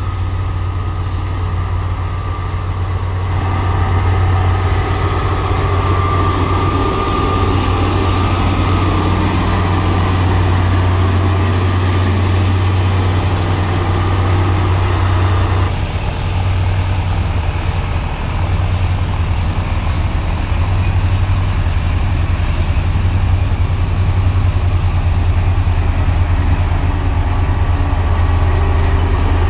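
Komatsu motor grader's diesel engine running steadily under load, with gravel grinding and scraping under the blade as it spreads the base course. The sound shifts abruptly about three and sixteen seconds in.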